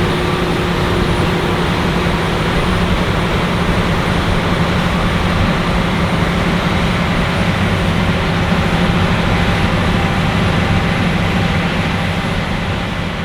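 Combine harvester running steadily at working speed, a constant heavy engine and machinery drone that begins to fade near the end.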